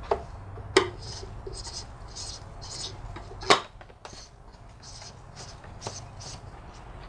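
Plastic oil filter cartridge and housing cap of a BMW E46 being fitted by hand: three sharp plastic clicks, the loudest a little after the middle, between runs of light scraping as the cap is seated.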